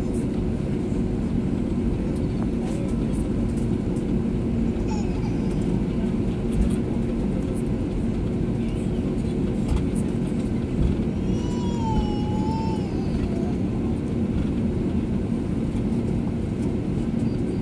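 Steady cabin noise inside an Airbus A320 on the ground: an even rush with a low engine hum, holding level and not building toward takeoff thrust. About twelve seconds in, a short wavering high-pitched call.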